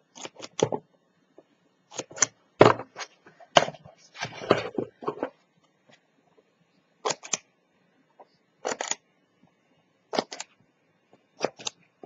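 Scissors snipping short straight slits into a card edge, each snip a crisp double click of the blades closing and opening. Several snips come quickly in the first half, then single snips about every second and a half.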